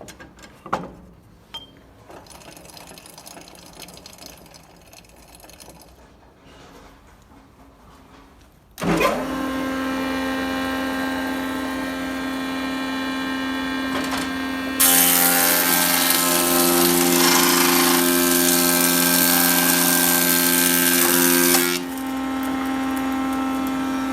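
A few faint clicks, then an SM-20K thickness planer's 5.5 kW motor and three-knife cutterhead switch on suddenly and run with a steady hum. Midway, a louder hissing cut lasting about seven seconds is heard as a board is fed through and planed, then the machine goes back to running idle.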